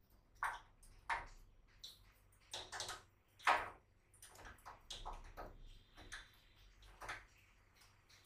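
Scattered light knocks and clicks, about a dozen at uneven intervals, from metal parts of a heavy-duty manual guillotine paper cutter being handled during reassembly after a blade change.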